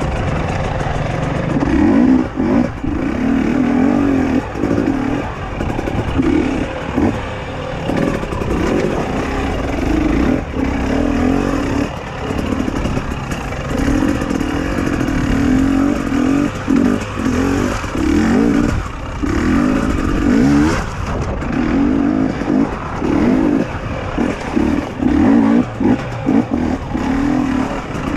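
KTM 250 XC-W two-stroke dirt bike engine revving in short bursts as the throttle is opened and chopped again and again, typical of crawling through a rock garden at low speed.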